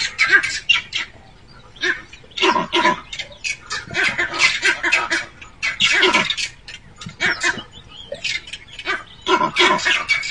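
Leopard snarling and hissing in a string of short, raspy bursts, irregularly spaced, while it squares up to crested porcupines. There are short lulls about a second in and again around eight seconds in.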